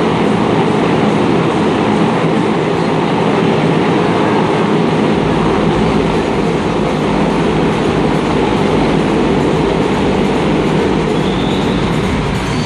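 Several motorcycles running hard inside a steel-mesh globe of death, their engines blending into one loud, steady drone. A deeper rumble builds in about five seconds in.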